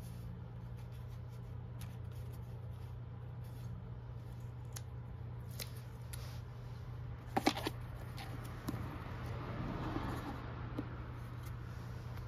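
Hands fixing a clear plastic switch box to a router's housing with double-sided tape: soft rustling and scattered light clicks, with a short cluster of sharp plastic clicks a little past halfway. A steady low hum runs underneath.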